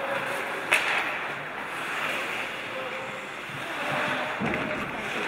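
Ice hockey play in a rink: a steady rushing noise with one sharp crack a little under a second in.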